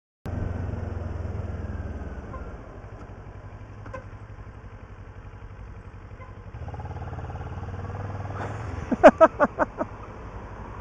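Kawasaki motorcycle engine running at low speed in traffic, picking up again after about six and a half seconds. Just after nine seconds comes the loudest sound: a rapid string of about six short horn toots.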